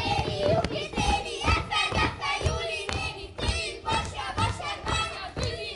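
A group of children singing together while they dance, with their feet thumping on the stage floor about twice a second.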